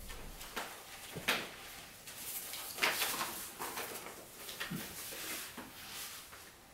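Sheets of paper rustling and small knocks of handling as a person sits down in a chair with papers and a tablet: a string of short, irregular rustles and clicks, the loudest about three seconds in.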